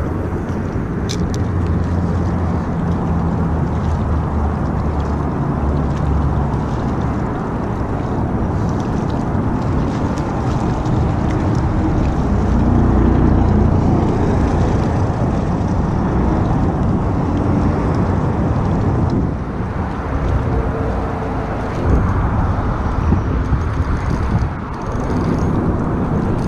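Steady road traffic noise from a nearby highway, cars passing with a continuous low rumble, mixed with wind on the microphone.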